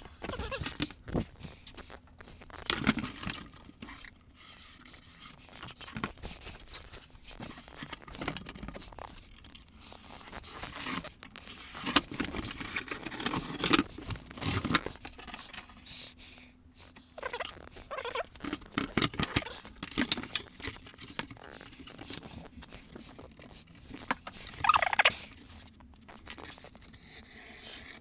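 Poster board being handled and fitted: irregular crinkling, scraping and knocking, with louder clusters of rustle now and then.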